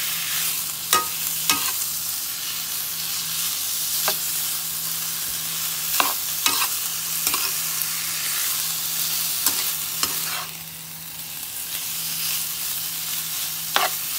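Cubes of pork frying in a nonstick wok, sizzling steadily while a metal spoon stirs and scrapes them, clinking sharply against the pan now and then. The sizzle dips briefly a little past the middle. A steady low hum runs underneath.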